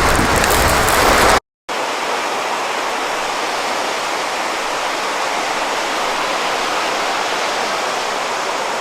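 Steady, even rush of river rapids or falling water, following a brief louder hiss that cuts off abruptly about a second and a half in.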